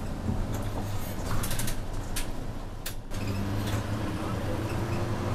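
Diesel engine of a city route bus idling, heard from inside the cabin near the front, with a few sharp clicks in the first three seconds. About three seconds in the engine note rises and a slowly climbing whine follows as the bus pulls away from the traffic light.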